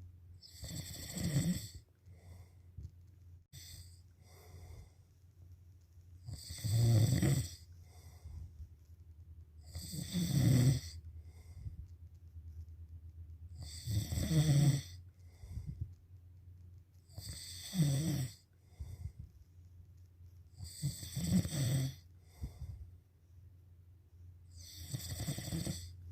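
Someone asleep and snoring: seven loud snores, one about every four seconds, with quieter breathing between them.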